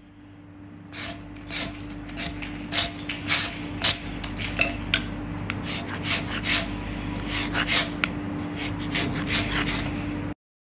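Hand chisels, a flat chisel and a V-tool, cutting into a block of ice. Repeated sharp scraping, chipping strokes come at an uneven pace, a dozen or more, over a steady low hum.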